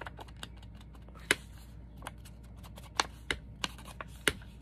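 An ink blending tool being dabbed onto an ink pad and onto paper: irregular sharp taps and clicks, about half a dozen louder ones.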